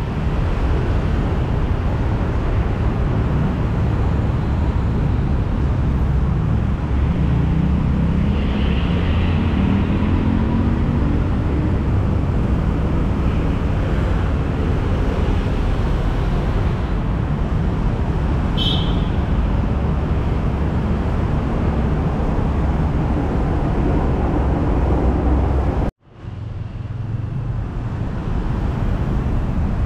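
Street traffic: a steady rumble of passing vehicles, with one engine rising in pitch as it accelerates about eight seconds in. The sound drops out abruptly near the end and fades back in.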